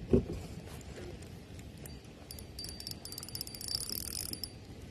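Fast, fine clicking from a spinning fishing reel being worked by hand, running for about two seconds in the middle, after a soft knock at the start.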